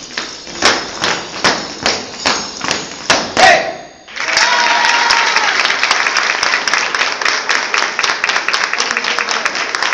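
Several dancers' boots stamping on a hard floor in a steady rhythm, about two to three stamps a second, ending on a loud final stamp a little over three seconds in. After a brief gap, audience applause breaks out and carries on.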